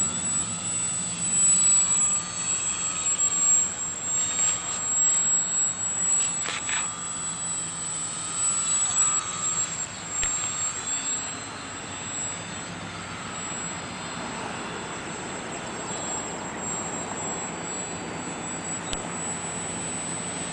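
Flatout Cap580 radio-controlled aerobatic model plane flying, its motor and propeller whining and changing pitch as it throttles and passes by, fainter in the second half as it flies off. A steady high-pitched tone sounds throughout.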